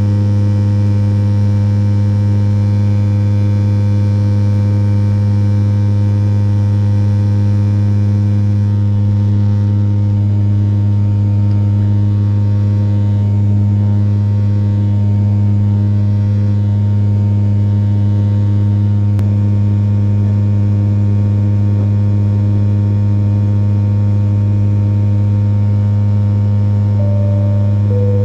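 Steady cabin drone of a Fokker 50's turboprop engines and six-bladed propellers in the climb, a deep even hum with strong low tones. Near the end a two-note cabin chime sounds, the higher note first and then a lower one.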